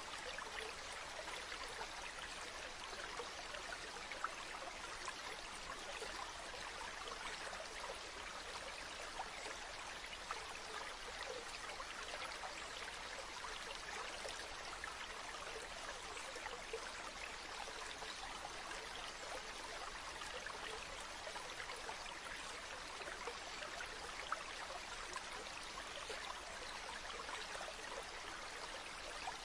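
Stream running steadily, a continuous babble of flowing water with small splashes and trickles.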